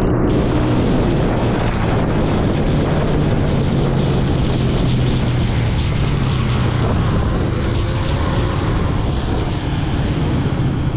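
Motorcycle engine running steadily under way, a constant low hum beneath heavy wind rush on the camera's microphone.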